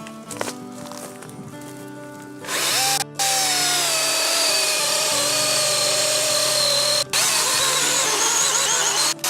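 A DeWalt Flexvolt 60 V brushless battery chainsaw starts about two and a half seconds in and cuts into a tree, its motor whine falling in pitch and then holding steady. It breaks off for a moment three times.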